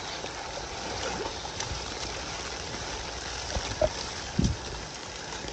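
Heavy tropical-storm rain falling steadily, with water running across the ground, and a couple of dull thumps about four seconds in.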